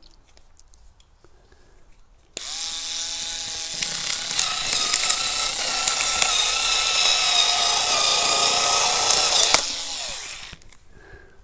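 A SKIL Auto Sharp cordless multi-cutter starts up about two seconds in, its spinning cutting wheel running with a steady whine while it cuts through a plastic blister pack. The gritty cutting noise grows louder as it goes. Near the end the motor stops and winds down with falling pitch.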